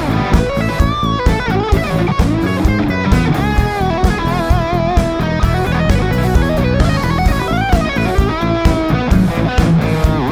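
Rock music: electric guitar, bass and drum kit keep a steady beat, while a lead melody line bends and wavers over the top.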